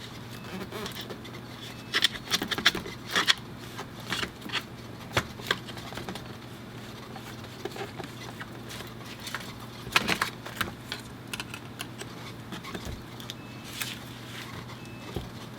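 Scattered clicks, taps and short scrapes of small tools and parts being handled on a MacBook Pro top case while the glued-in battery is worked loose, over a steady low hum. The sharpest clicks come about two to three seconds in and again around ten seconds.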